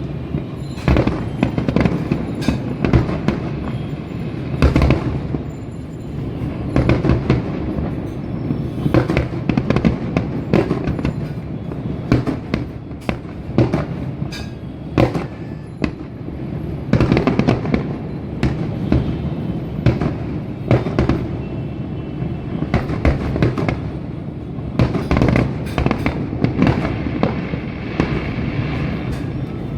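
Aerial shell fireworks bursting one after another: loud sharp bangs at irregular intervals, often several in quick succession, over a continuous low rumble of further explosions.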